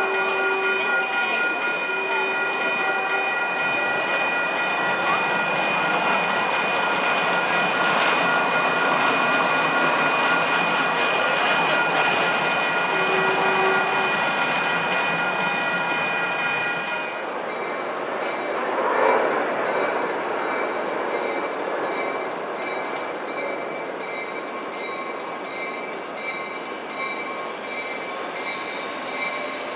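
Grade-crossing warning bells ringing steadily while a light-rail trolley rolls through the crossing. About halfway in the bells stop abruptly, and a train approaches, its wheels giving a high squeal that falls and then rises near the end.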